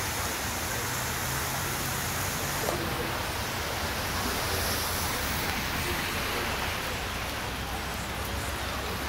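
Heavy rain falling steadily on a flooded street, an even hiss. Near the start a car drives through the standing water, its tyres splashing.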